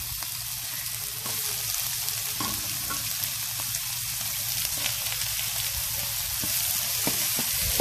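Sliced carrots, green bell pepper and onion sizzling steadily in hot oil in a wok, stirred with a wooden spoon that scrapes and ticks against the pan now and then.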